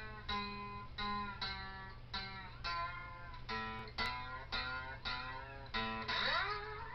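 Lap steel guitar played with a slide bar: single plucked notes about twice a second, each ringing and fading, with a note slid up in pitch near the end. A steady low hum runs underneath.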